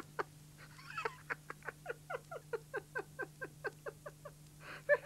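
A man's rapid staccato giggle: a long run of short "heh" sounds, about six a second, each dropping in pitch, starting about a second in and dying away a little after four seconds. A steady low hum runs underneath.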